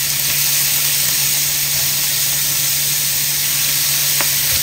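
Sliced pork and mushrooms sizzling in a hot nonstick frying pan while being stirred with a spatula: a steady hiss, with one light tap of the spatula about four seconds in.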